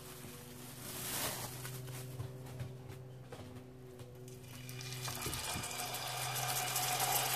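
Plastic cling film crinkling as it is peeled off a raw minced-meat roll, then hot oil beginning to sizzle as the roll is laid in a frying pan, growing louder toward the end, over a steady low hum.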